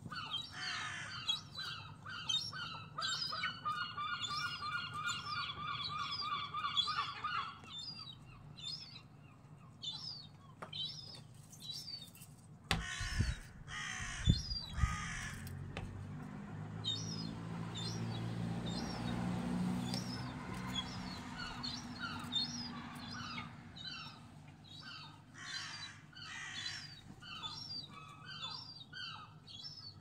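Seagulls calling outside an open window: a long run of evenly repeated wailing notes from about three to seven seconds in, with shorter calls scattered through the rest. A few sharp knocks come about halfway through, followed by a low rumble for several seconds.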